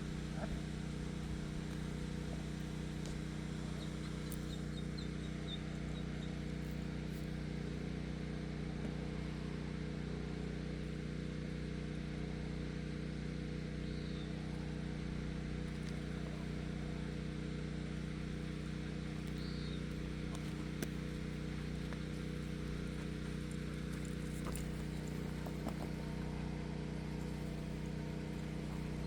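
An engine hums steadily at a constant pitch, with no change in speed, like a vehicle idling. A few faint high chirps sound now and then over it.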